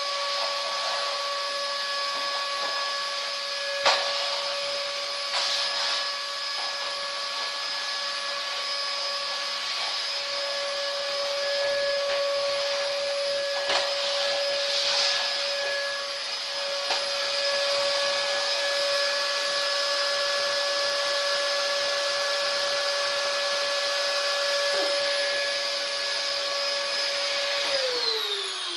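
Vacuum cleaner motor running steadily with a constant whine over its airflow noise, with a sharp click about four seconds in. Near the end it is switched off and the motor winds down, its pitch falling.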